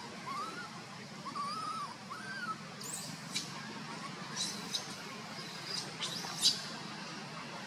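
Baby macaque's faint, high whimpers, a few short rising-and-falling cries in the first couple of seconds. Short, sharp high chirps follow through the rest, the loudest about six and a half seconds in.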